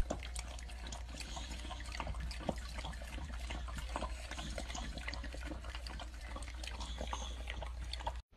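Dog lapping milk from a metal bowl: a run of quick, irregular wet laps and slurps.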